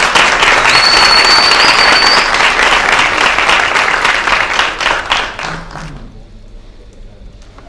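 Audience applauding. A thin high whistle-like tone sounds over the clapping for about a second and a half near the start, and the applause dies away about six seconds in.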